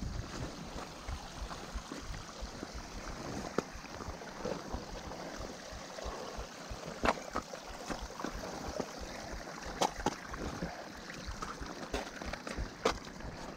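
Wind buffeting the chest-mounted GoPro Hero 6 Black's microphone as a steady rumble, with rustling and a few sharp knocks and scrapes from gloved hands and clothing against rock, about four standing out.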